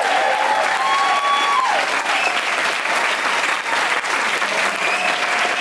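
Audience applauding steadily, with a few cheering voices calling out near the start and again near the end.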